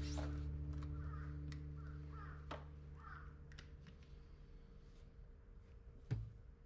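Background music's last chord ringing out and slowly fading. Over it come a few faint squeaks and clicks, with a soft thump about six seconds in.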